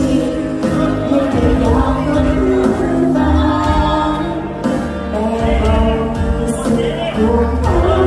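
Amplified live music: a woman singing into a microphone over backing music with a steady bass, played through PA loudspeakers.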